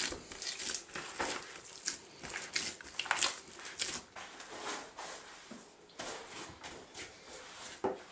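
Portuguese sweet bread (massa) dough being beaten and worked: irregular soft squishes and slaps, several a second, while milk is worked into it a little at a time.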